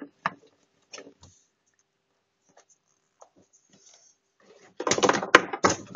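Light clicks and taps of a small plastic toy figurine being handled and set down on a hard surface. About five seconds in comes a louder patch of scraping and clicking handling noise close to the microphone.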